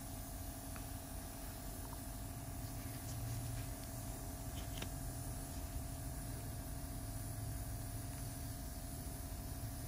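Steady low machine hum with a few faint ticks in the first half.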